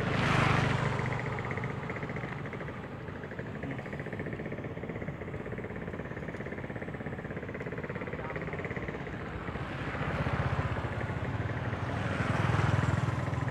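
Motorbikes running on the road: a steady engine hum, with one passing loudly right at the start and two more swelling up and fading near the end.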